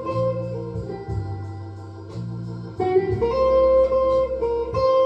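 Electric guitar playing a slow lead line of long held notes.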